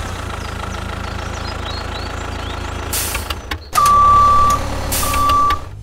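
Tractor engine idling with a steady low rumble, then two long reversing beeps at one steady pitch, with a short hiss just before them.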